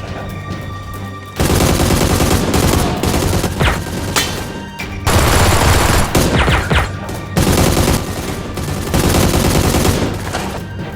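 Rapid automatic gunfire sound effects, starting about a second and a half in and running in long bursts with short breaks, dubbed over a Nerf blaster fight.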